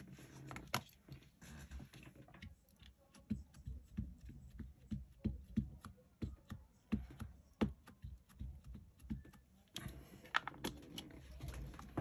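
Light, irregular tapping of an ink pad being dabbed onto a clear rubber stamp to ink it, with small clicks of the pad and stamp being handled; the taps come a few a second, busier near the end.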